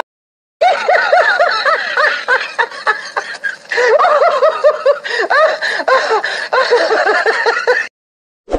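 A high-pitched, cackling laugh sound effect with rapid repeated ha-ha pulses, stopping suddenly about a second before the end.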